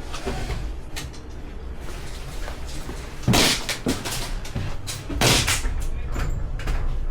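Two loud, sudden bangs about two seconds apart, each lasting around half a second, with a sharp click earlier and a low rumble of movement underneath.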